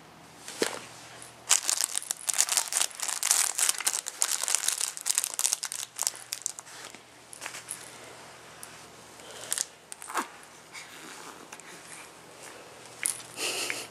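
Crinkle-fabric flap of a baby play mat being scrunched by hand: a dense run of crackling for about five seconds, then only a few scattered crinkles.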